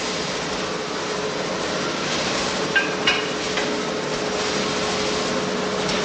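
Coffee-roasting plant machinery running with a steady hum and an even rushing noise. Two short knocks come about three seconds in.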